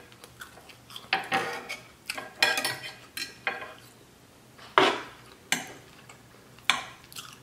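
Metal fork and knife clinking and scraping against a plate, about six or seven separate strokes with short quiet gaps between them.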